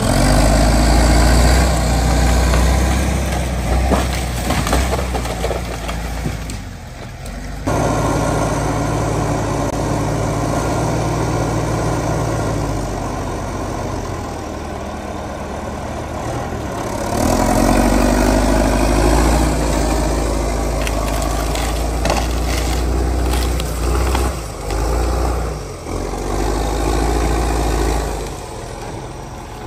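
Caterpillar 518 grapple skidder's diesel engine working as it drags a log, its note rising and falling with the load, with scattered cracks of breaking wood and brush later on.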